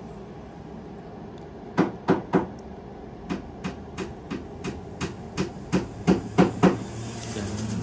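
Sharp clicks from operating a Lenovo ThinkPad laptop: three quick clicks about two seconds in, then a steady run of about three clicks a second, over a low steady hum.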